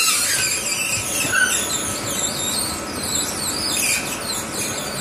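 Corn-puff extruder running, with a dense, continuous stream of rapid high-pitched squeaks and crackles as the heated, compressed corn meal puffs out of the die ("snap, crackle, pop"), over the steady running noise of the machine.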